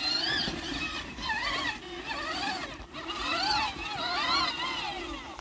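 Whine of a Huffy Torex battery-powered ride-on ATV's electric motor and gearbox, rising and falling in pitch over and over as it speeds up and slows down, and stopping at the end.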